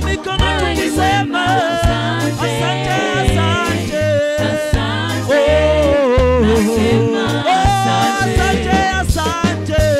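Live gospel band playing a reggae-style song: a lead voice and backing singers over electric bass guitar, keyboard and drums, with a steady pulsing bass line.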